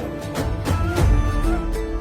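Instrumental music with a melody line, drum strikes and a heavy bass that comes in about half a second in.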